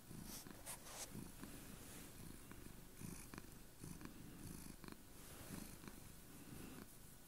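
Domestic cat purring while she is scratched under the chin, a quiet low rumble that pulses about twice a second.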